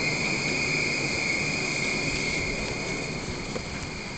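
Steady high-pitched electrical whine from a Hyundai Rotem urban maglev train on its elevated guideway, over a low hiss, easing slightly near the end.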